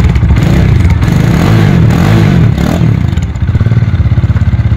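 Bajaj Dominar 400's single-cylinder engine running loud through an opened-up exhaust with the end piece removed. It is blipped, rising and falling in pitch, during the first half, then settles into a fast, steady pulsing idle.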